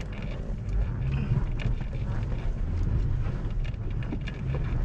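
Off-road 4x4 driving on a muddy trail: a steady low engine and drivetrain rumble with scattered light knocks, and some wind on the microphone.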